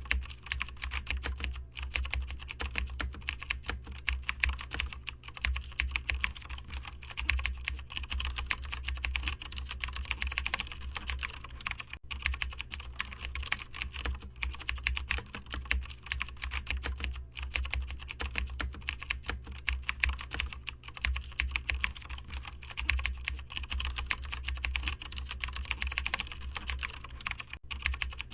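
Continuous rapid typing on a computer keyboard, a dense run of key clicks with only brief pauses, over a steady low hum.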